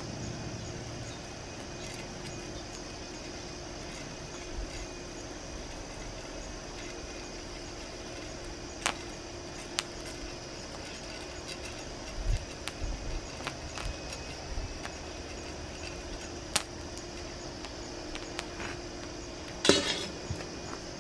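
Popcorn kernels popping now and then under molten lava: a few separate sharp pops, the loudest one near the end, over a steady background hiss. A cluster of low knocks and rumbles comes in the middle while a metal rod stirs the smoking kernels.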